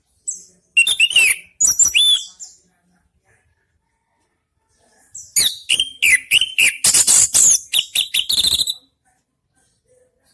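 Orange-headed thrush singing loudly in two bursts of varied song: a short phrase about a second in, then a longer run of rapid notes and sliding whistles from about five seconds in until near the end.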